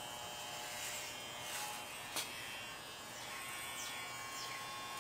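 Electric hair clippers running steadily and fairly faintly while shaving a head, with a single short click about two seconds in.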